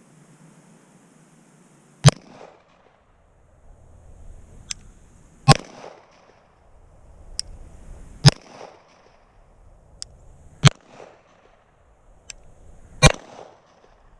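Glock 17 9mm pistol firing five single shots, slow aimed fire about two and a half seconds apart, each with a short echo. Fainter sharp cracks fall between the shots.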